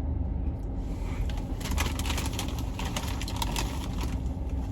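Car engine idling, heard from inside the cabin as a steady low rumble. A run of short clicks and rustles comes in its middle.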